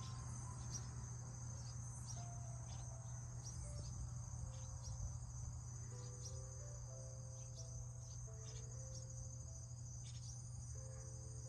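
Insects trilling steadily at a high pitch, with short chirps from a bird scattered through.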